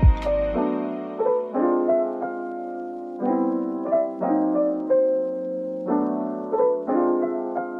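Background music: soft electric piano playing chords, struck about once a second and left to ring between strikes.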